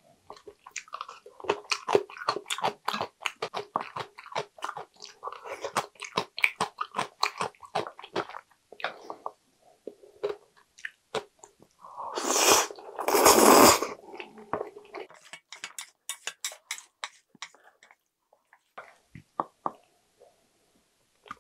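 Close-miked chewing of thick jjajang ramen noodles, with many small wet mouth clicks and smacks. About twelve seconds in come two loud slurps as a bundle of the sauce-coated noodles is drawn in, then quieter chewing that dies away near the end.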